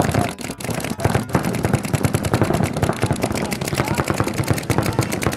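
Several paintball markers firing rapid strings at once: a dense, continuous stream of overlapping pops.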